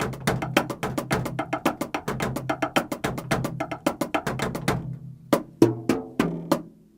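Acoustic drum kit fitted with mesh drumheads being played: a fast run of sharp, tappy strokes, about eight a second, that slows to a few separate hits about five seconds in and then stops.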